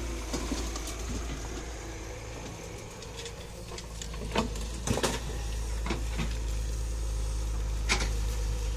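Tata Hitachi EX200LC excavator's diesel engine running steadily, with a few sharp clunks of rock as the bucket works the stone pile, about halfway through and again near the end.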